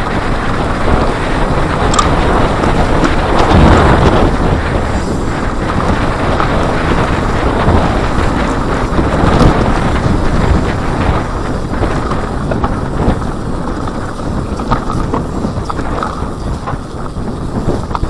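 Wind rushing over the action camera's microphone as a Cube Stereo full-suspension mountain bike descends a dry dirt singletrack, with the rumble of the tyres and scattered knocks and rattles of the bike over rough ground.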